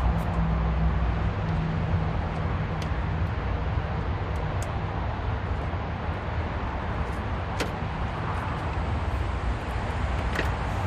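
Steady low motor hum with a few sharp clicks, spaced a couple of seconds apart, as plastic grille clips are pried out with a small flathead screwdriver.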